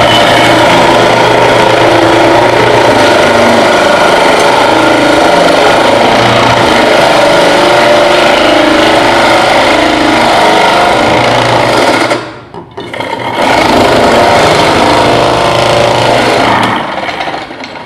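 Electric kitchen appliance crushing ice: its motor runs with a steady hum under a dense rattle of ice against the blades. It stops about twelve seconds in, restarts a second and a half later, and winds down near the end.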